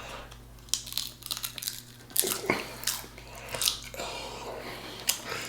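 A person biting and chewing a crunchy snack close to the microphone, with a string of irregular sharp crunches. The eaters find the snack stale and say the crunch didn't even sound right.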